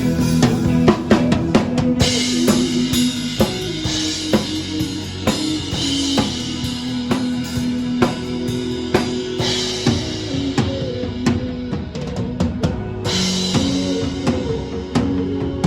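Live band music at a soundcheck, led by a drum kit: bass drum and snare hits with stretches of cymbal wash, over held low pitched notes.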